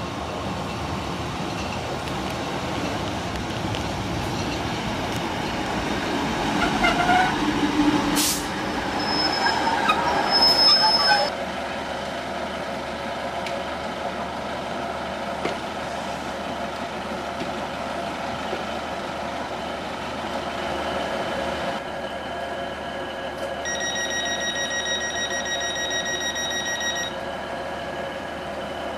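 British Rail Class 156 diesel multiple unit running into the platform, with a sharp hiss and a high brake squeal as it stops. It then stands with its diesel engine idling, and a steady high tone sounds for about three seconds near the end.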